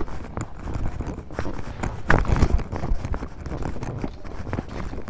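Footsteps climbing concrete steps, a string of uneven knocks over a low rumble on the handheld microphone.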